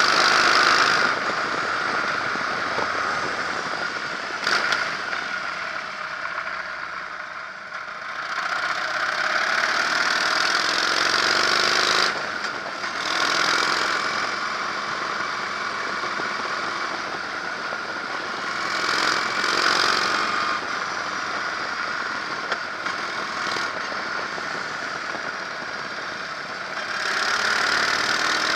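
Harley-Davidson Electra Glide's V-twin engine running while the motorcycle is ridden, with wind rushing over a microphone mounted low by the engine. The rush swells and fades, and the engine note climbs about eight to twelve seconds in as the bike speeds up.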